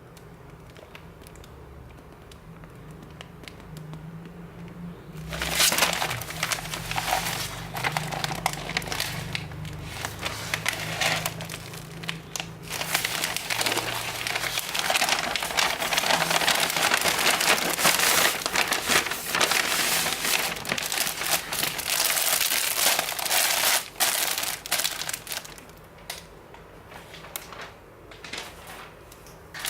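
T-shirt packaging being handled and unwrapped: crinkling and crumpling that starts about five seconds in, carries on densely and irregularly, and eases off near the end.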